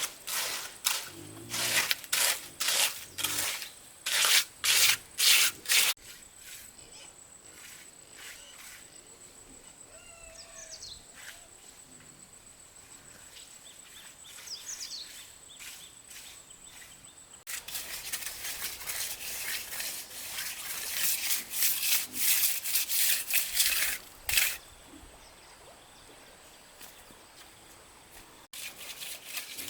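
Repeated rough scraping or rubbing strokes, about one or two a second, in two runs. Between them is a quieter stretch with a few short bird chirps.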